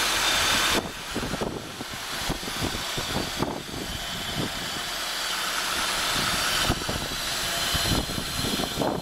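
Newly swapped engine in a Nissan Altima running just after its first start, with a steady hiss and many irregular light ticks. It is louder for about the first second, then settles to a steady idle.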